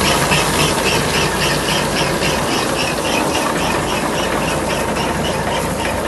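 Tractor engine running steadily while pulling a potato digger. Over the engine, an even squeak repeats about four times a second from the digger's moving parts.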